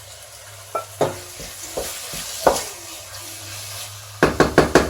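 Chicken pieces sizzling in a hot frying pan as they are stirred, the utensil knocking against the pan a few times, then a quick run of about six taps near the end.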